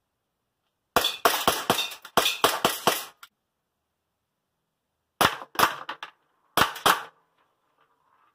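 Umarex Glock 19 blowback airsoft pistol firing 6 mm plastic BBs: a quick string of about eight sharp shots about a second in, then a few more shots in two short groups later on.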